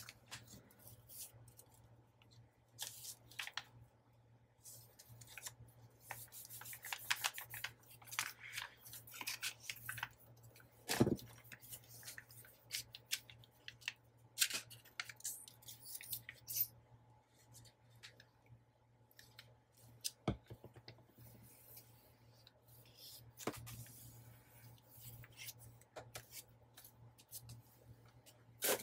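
Paper being handled at a craft table: scattered short crisp rustles, crinkles and snips as paper pieces are worked and glued into a journal. A single louder knock about eleven seconds in.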